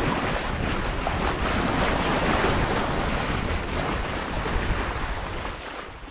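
Water rushing and splashing along the hull of a sailboat under way, with wind buffeting the microphone; it fades out near the end.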